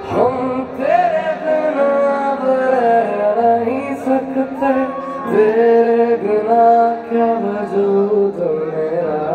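Amplified live band music with a vocal line singing a melody of gliding and held notes over the band.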